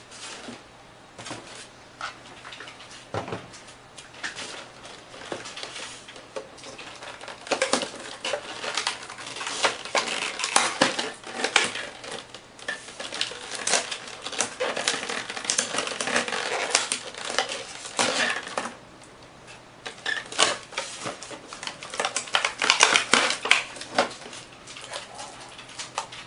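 Unpacking noise from a polystyrene foam packaging tray and cardboard inserts being handled: foam rubbing and knocking, with quick clicks and rustles. Sparse at first, busiest through the middle and again toward the end, with a short lull between.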